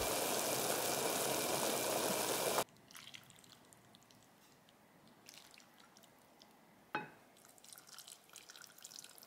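Jjampong soup boiling hard in an enamel pot, a loud steady bubbling that cuts off suddenly after about two and a half seconds. Then a sharp clink about seven seconds in, followed by soft splashing and dripping as the soup is poured over noodles in a bowl.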